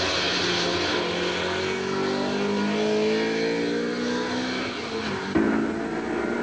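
Group A Honda Civic race car's engine revving up hard under acceleration, its pitch climbing steadily for several seconds, then dropping with a sudden jolt just past five seconds in, as on a gear change. Heard through a television's speaker.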